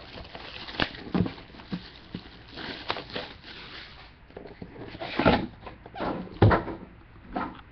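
A sealed hard-sided trading-card hobby box (2013/14 Panini National Treasures) being picked up, turned over and set against the table: irregular knocks, scrapes and rustles, the loudest knocks about five and six and a half seconds in.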